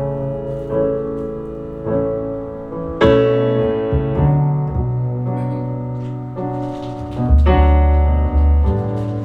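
Instrumental piano passage of a ballad played back over an Alcons Audio CRMS mkII three-way cinema reference monitor system: chords struck every second or so, with a deep bass note coming in about seven seconds in.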